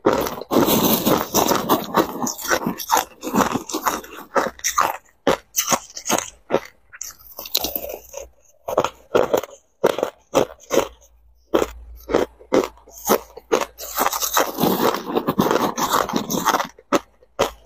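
Crushed ice being bitten and chewed in the mouth, a fast, irregular run of sharp crunches, with a metal spoon scooping through the ice in a plastic bowl. The crunching comes thickest just after the start and again near the end.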